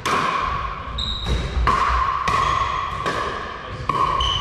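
Pickleball rally: a quick series of about ten sharp pops from paddles striking the hard plastic ball and the ball bouncing on a wooden floor, each ringing briefly and echoing in the hall.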